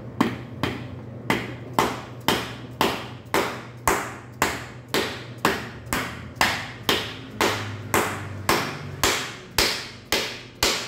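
Rubber mallet striking a custom-made oil-seal installer tool, driving an oil seal squarely into its bore. The strikes are evenly spaced, about two a second, each a sharp tap with a brief ring.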